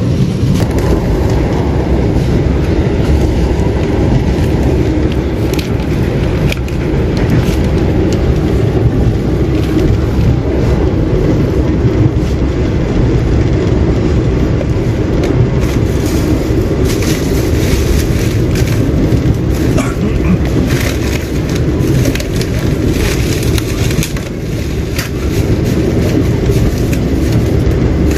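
Running noise of a locomotive-hauled passenger train heard from inside the coach: a steady, loud rumble of wheels on the track, with frequent sharp clicks and rattles in the second half.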